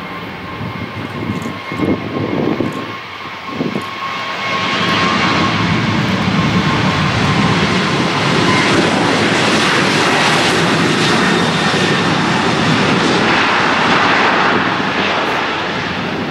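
Boeing 737's twin CFM56 turbofan engines at high power on the runway, a steady fan whine over a heavy jet noise that swells about four seconds in and stays loud: the thrust of a takeoff roll.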